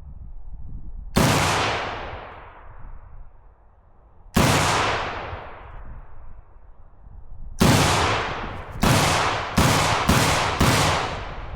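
Seven rifle shots, each with a long echoing tail: two single shots about three seconds apart, then five in quicker succession in the second half, the last four less than a second apart.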